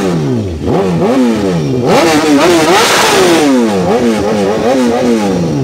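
Sport motorcycle's engine revved repeatedly by blipping the throttle, its pitch climbing and dropping again about eight times, with quick back-to-back blips in the middle. The sound cuts off suddenly at the end.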